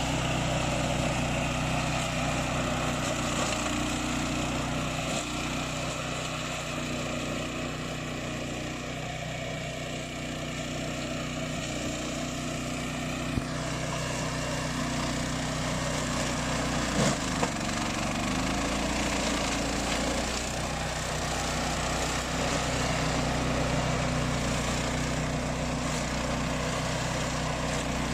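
Remote control flail mower's engine running steadily, with a brief drop in pitch and a couple of sharp knocks about seventeen seconds in.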